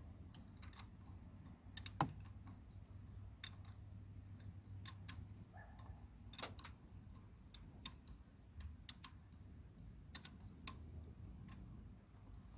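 Light metal clicks and clinks of a wrench working the clamp bolts of a new battery terminal, tightening them a little at a time, at irregular intervals over a faint low hum.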